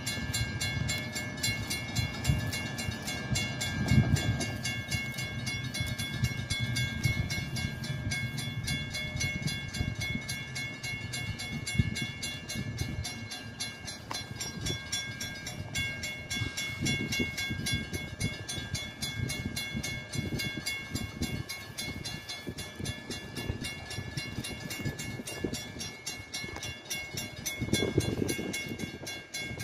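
Grade-crossing warning bell ringing in a steady, rapid series of strikes. Near the end the low rumble of the approaching train rises as the leading coach reaches the crossing.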